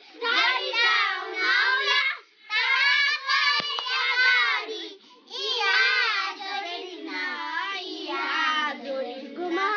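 A small group of young girls singing a song together, in phrases with short breaks about two seconds in and again about five seconds in.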